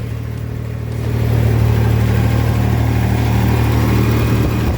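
1994 Ford Ranger engine idling steadily, run right after an oil change to circulate the fresh oil. It grows a little louder about a second in.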